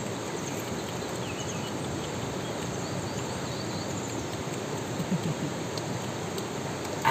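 Stream water rushing steadily over rocks, an even rush with faint high chirps about a second in. A brief low voice-like sound rises above it about five seconds in.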